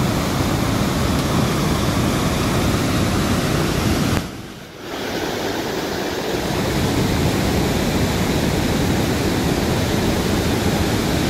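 Waterfall in spate: a heavy, steady rush of peat-brown floodwater pouring over limestone steps, with the level dipping briefly about four seconds in.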